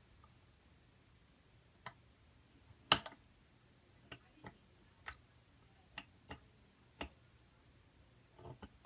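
Scattered light clicks and taps, about eight in all at irregular spacing, the loudest about three seconds in, from a soldering iron and fingers working on the solder side of a CB radio's circuit board.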